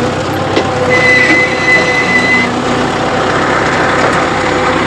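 Tractor engine running steadily under load while pulling a carrot bed-shaping implement, its spiked roller turning through the soil. A thin high whine sounds for about a second and a half near the start.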